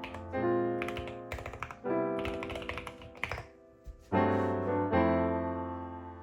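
Clicky computer keyboard typing in short runs, over background music of slow, sustained keyboard chords.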